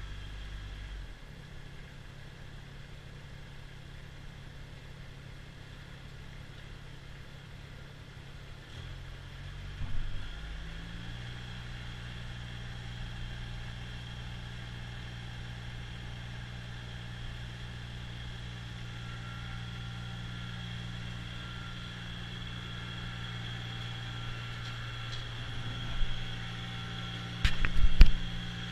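Kubota BX2660 subcompact tractor's three-cylinder diesel engine running steadily while driving its front snowblower, the engine note shifting around ten seconds in. A few sharp knocks near the end.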